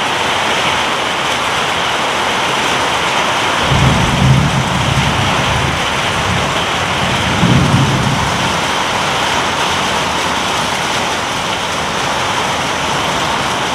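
Heavy rain falling steadily, with two low rumbles of thunder, one about four seconds in and another near eight seconds.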